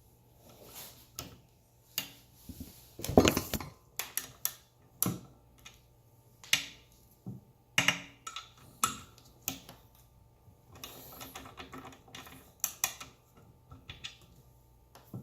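Irregular metallic clicks and clanks of a hand tool working the flywheel bolt of a Wahoo Kickr 2018 bike trainer as the bolt is tightened, with the loudest clank about three seconds in. The bolt being tightened is the one found to be causing the trainer's creaking noise.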